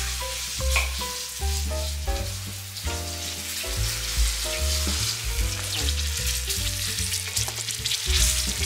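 Starch-coated chicken pieces deep-frying in hot oil: a steady sizzle thick with small crackles and pops. Background music with a simple stepping melody runs underneath.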